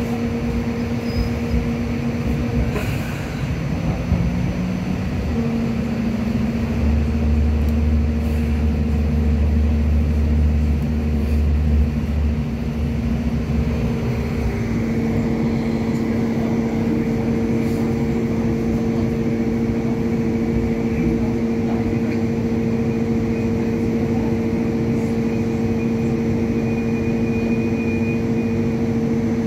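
Hong Kong Light Rail Phase III car running along the track: a steady rumble with a constant two-note electrical hum. A deeper low drone comes in about seven seconds in and lasts for about seven seconds.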